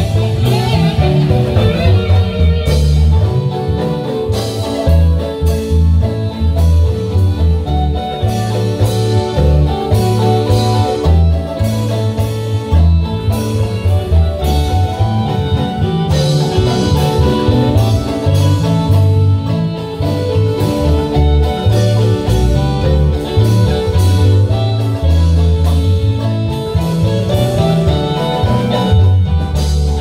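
Live marimba band playing loud dance music, with mallet notes over a heavy pulsing bass line and a steady drum beat.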